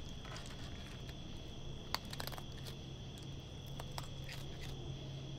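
A raccoon crunching dry kibble, with a few sharp crunches about two seconds in and again around four seconds. Crickets chirr steadily behind it.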